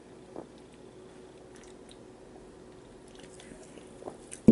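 Soft swallowing and small mouth clicks from drinking a fizzy drink from a can, over a faint steady hum, with a sudden loud thump at the very end.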